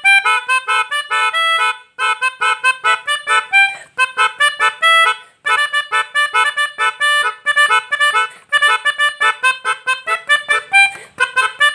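Pianika (keyboard melodica) played in quick, short staccato notes, imitating the tunes of a basuri musical truck horn. The notes come in several fast phrases broken by short pauses.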